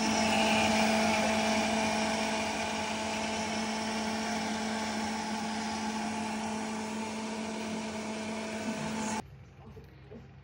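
Countertop jug blender running with a steady motor whine, cutting off sharply about nine seconds in.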